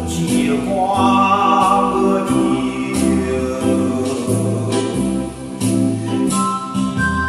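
Vietnamese song: a voice singing over electronic organ accompaniment, with a steady bass line and beat.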